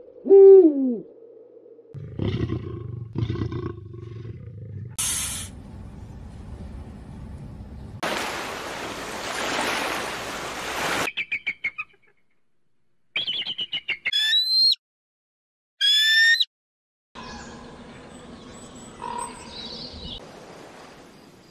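A run of separate wild animal and bird calls, one after another: a loud call falling in pitch at the start, short calls, a few seconds of steady rushing noise in the middle, then high whistled chirps rising and falling.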